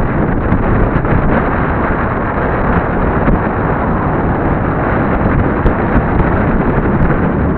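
Steady, loud wind buffeting on the microphone of sunglasses-mounted camera glasses worn by a cyclist descending at speed on a road bike.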